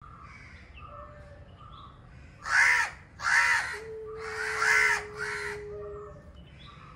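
Two male cats yowling at each other in a standoff: four loud, harsh screeching yowls come close together starting about two and a half seconds in, with a low, steady moaning yowl held beneath them for about two seconds.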